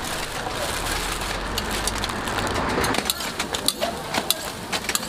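A thin plastic carry bag rustling, then hotteok frying on an oiled flat griddle: a steady sizzle with scattered sharp pops and clicks for the last couple of seconds.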